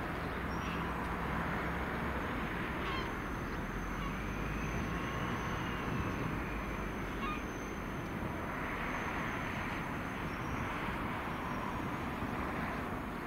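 Distant 2TE25KM two-section diesel locomotive with a freight train, its engines giving a steady drone as it approaches. A few short, faint chirps are heard over it.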